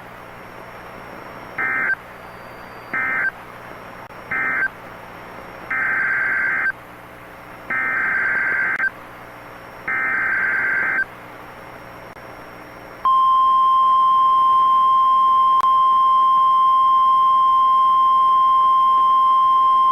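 Emergency Alert System data tones from NOAA Weather Radio: three short warbling data bursts, which mark the end of the previous message, then three longer bursts, which are the header of a new alert. About two seconds later the steady 1050 Hz warning alarm tone starts and holds, announcing a new warning.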